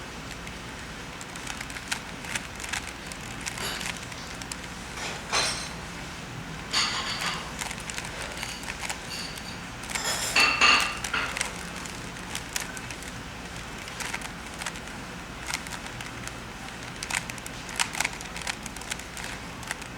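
Plastic Rubik's Cube being turned by hand: irregular clicking and scraping of the layers as they twist, with a few louder runs of turns.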